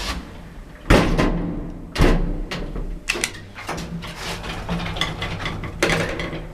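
Lift doors and mechanism: several loud clunks, about a second in, about two seconds in and near the end, with smaller clicks between, over a steady low hum.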